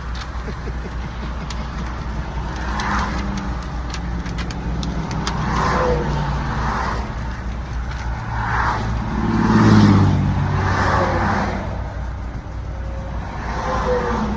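Heavy truck's diesel engine running with a steady low rumble, then revving up and accelerating, loudest about two-thirds of the way through.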